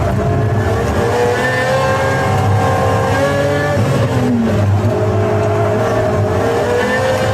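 V12 supercar engine revving hard, its pitch climbing steadily. About four seconds in the pitch dips, then it climbs again.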